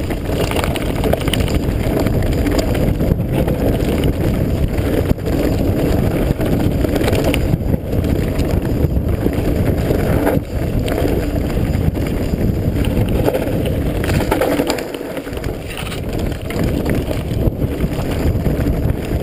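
Wind rushing over an action camera's microphone, mixed with the rattle and tyre noise of a mountain bike riding fast down a rough dirt trail. It is loud and steady, broken by frequent jolts.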